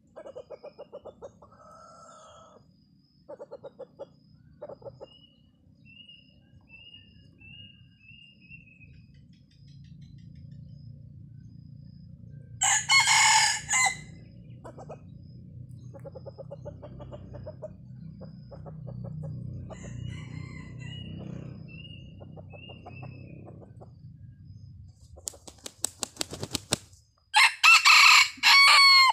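Red junglefowl rooster crowing twice, short clipped crows about 13 seconds in and again near the end. Between them come runs of rapid low clucking, with a steady low hum through the middle.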